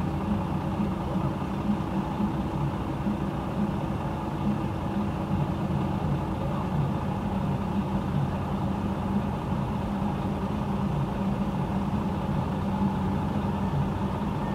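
Steady low rumble of idling engines heard from inside a car's cabin in stopped traffic, with a faint steady hum that fades out about six seconds in.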